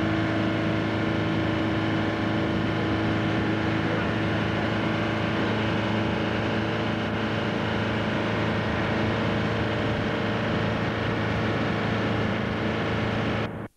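Speedboat engine running steadily at speed with water rushing, towing a water-skier; the sound cuts off abruptly near the end.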